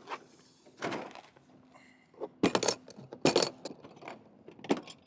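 Four or five short clinks and clattering knocks, spaced about a second apart.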